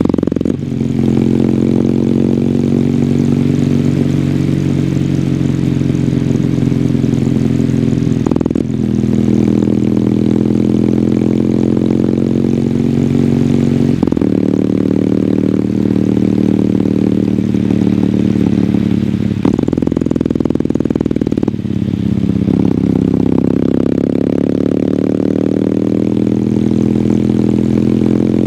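Kawasaki W800's air-cooled parallel-twin engine through its stock exhaust, pulling under way. The pitch climbs in stretches as it accelerates and drops back at a few gear changes, with short dips in level at the shifts.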